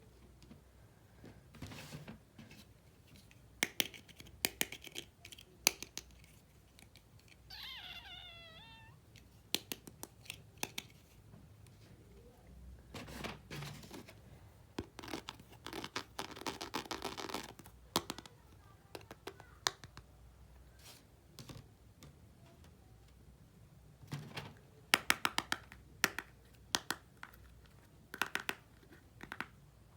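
Small sharp clicks, taps and scrapes of small plastic toy-kitchen pieces being handled and set down, in uneven runs, with a dense cluster of clicks near the end. A short high wavering call, falling in pitch, sounds about eight seconds in.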